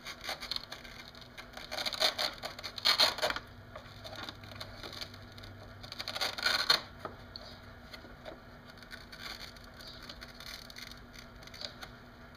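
Hands working inside a motorcycle's plastic fairing, with crackling, rustling and scraping of plastic and wiring, louder in two bursts about two and six seconds in.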